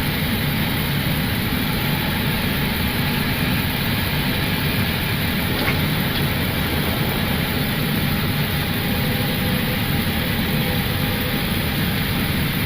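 Steady rushing noise inside an airliner cockpit, engine and airflow noise that holds level without change.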